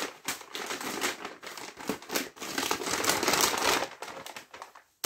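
Red paper wrapping being crinkled and pulled open by hand, a continuous rustling crackle that is loudest a little past the middle and dies away near the end.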